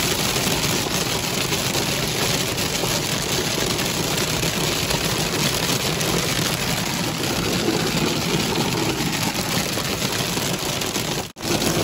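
Heavy rain hitting a car's windshield and roof, heard from inside the cabin as a dense, steady hiss with the car's road and engine noise beneath it. The sound cuts out for a moment near the end.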